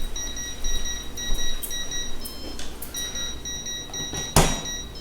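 Electrical voltage tester beeping rapidly in a high, even pulse, with a short break partway through. A sharp knock sounds near the end.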